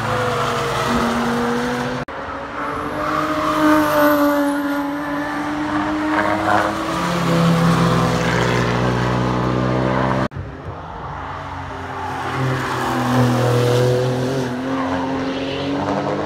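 Sports car engines accelerating past on a race track, the engine notes rising and falling with each pass. The sound cuts abruptly to a new car twice, about two and ten seconds in.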